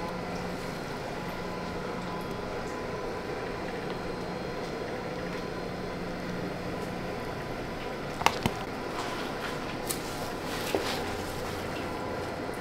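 Steady workshop room noise with a low hum, while epoxy resin is poured from a plastic cup. A few short sharp clicks come about two-thirds of the way through, the loudest pair close together.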